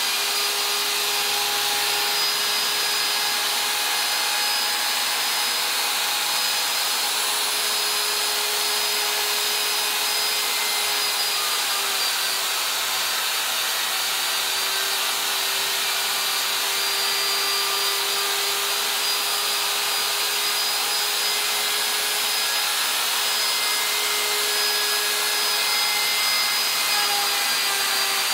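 Electric handheld router running at full speed with a steady high whine as its bit cuts a groove into a high-density polyethylene cutting board, pushed along a clamped straight edge.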